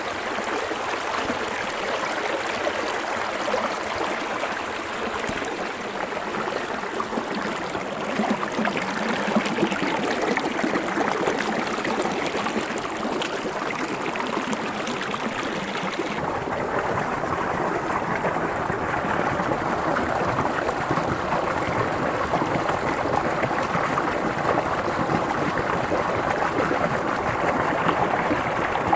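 Small forest stream running over rocks, a steady rush and gurgle of water. About halfway through the sound shifts abruptly, turning deeper and less hissy.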